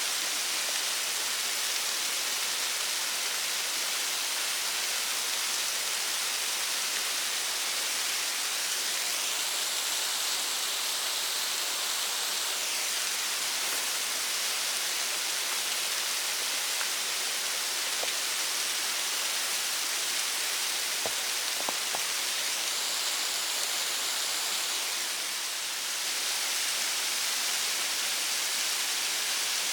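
Kiyotaki Waterfall on Mt. Ontake: water falling and splashing in a steady, unbroken rush with a bright hiss.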